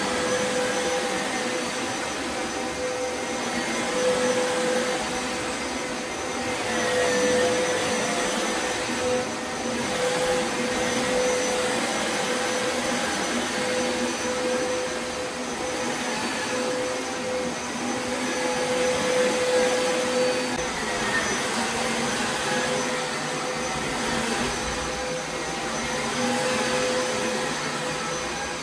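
Upright carpet shampooer running steadily, a single tone whining above its suction noise. The level swells and eases every few seconds.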